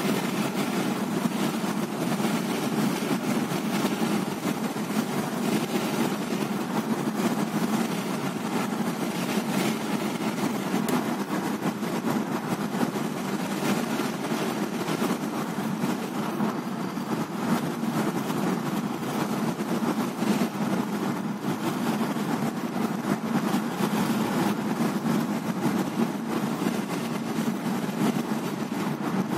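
Steady engine and tyre noise from inside the cabin of a moving car, a constant low drone without change.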